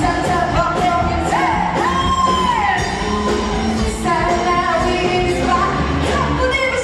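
Pop music with a singer's voice carrying the melody over a steady beat.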